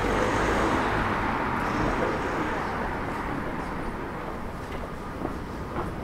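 Street noise from a passing motor vehicle, fading away as it goes.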